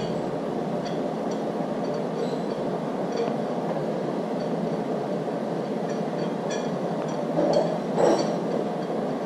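Light metallic clicks and ticks of a steel camshaft installer rod being threaded by hand into the end of a camshaft, with a soft knock near the end. Over it runs a steady background hum.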